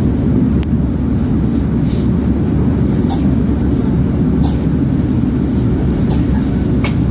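Steady low rumble of a moving passenger train heard from inside the carriage, with a few scattered sharp clicks from the wheels passing over rail joints and points.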